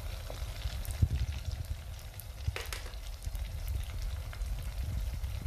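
Lumpiang shanghai (pork spring rolls) sizzling and crackling as they deep-fry in hot oil, with two knocks from the tongs against the pot, about one second in and about two and a half seconds in.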